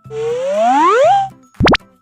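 Cartoon sound effects over children's background music: a whistle-like tone glides upward for about a second, then a very quick upward pop sounds near the end.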